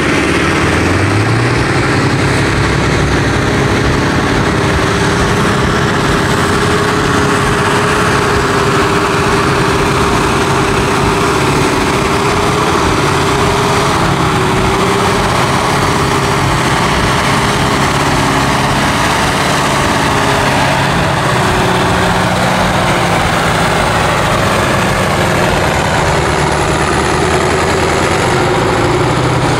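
V8 diesel engine of a modified John Deere pulling tractor running hard at steady high revs under full load, dragging a weight-transfer sled. A faint high whine falls in pitch near the end.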